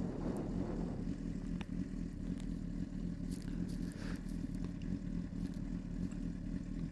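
Honda CBR600RR's inline-four engine running steadily under way, a low, even drone heard from inside the rider's helmet.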